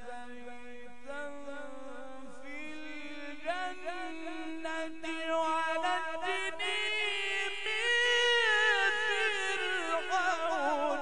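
A male Quran reciter chants a long melodic phrase of tajweed recitation. He holds ornamented notes that climb step by step in pitch and grow louder, peaking past the middle, then breaks into a fast wavering trill near the end.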